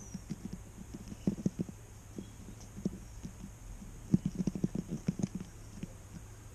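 A mouse moving about right at the microphone: soft, low bumps and scuffs, a quick cluster about a second in and a longer, denser run in the second half as it comes up close.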